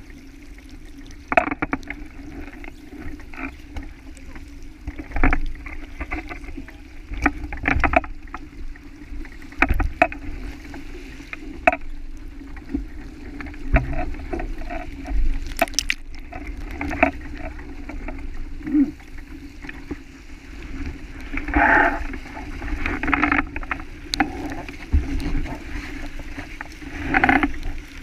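Water rushing and splashing along the hull of a sailboat moving at speed, with irregular slaps of spray hitting the boat and camera over a steady low hum.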